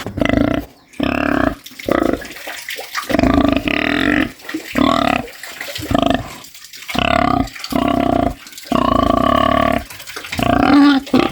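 Domestic pig grunting over and over: a string of about eight drawn-out, pitched calls, each half a second to a second and a half long, with short pauses between them.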